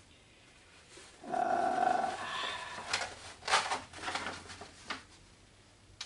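A short, steady pitched tone about a second in, lasting just over a second. Then a few bursts of crackling rustle as a roll of green grass matting is handled and unrolled.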